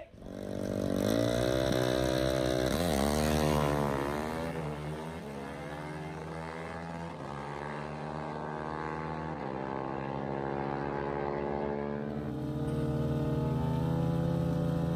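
Drag-racing motorcycle engines revving hard, the pitch swinging up and down in the first few seconds, then running steadily at a high idle that grows a little louder near the end.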